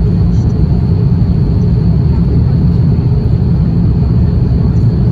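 Steady low rumble of an Airbus A350-1000 in flight, heard inside the passenger cabin: airflow over the fuselage and its Rolls-Royce Trent XWB engines.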